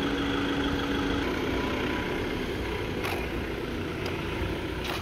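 A car engine running at idle over a steady outdoor hiss. Its low hum fades out about a second and a half in, and there are two brief bursts of noise near the end.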